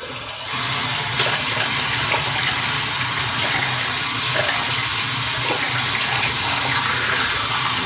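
Tap water running in a steady stream into a sink while lather is rinsed out of a 3D-printed single-edge razor. It starts about half a second in.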